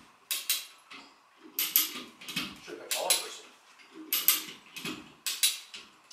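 Sharp metallic clicks and clanks from hand-worked lifting hardware, often in quick pairs, about once a second.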